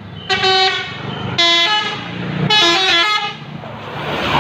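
Bus telolet horn (Basuri multi-tone horn) playing three short blasts, each a quick run of several notes.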